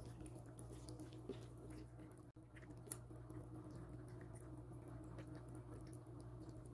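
Faint wet squishing and small clicks of a hand kneading raw chicken pieces in a thick yogurt-and-herb marinade, over a steady low hum.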